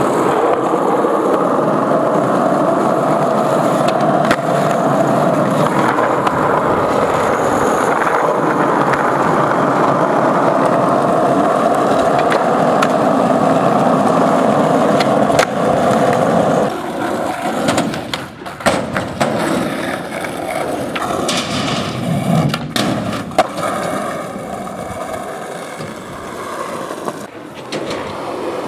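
Skateboard wheels rolling over asphalt, a loud, steady rolling noise for the first half. From about halfway through the rolling is quieter and broken by a few sharp clacks of the board hitting the ground.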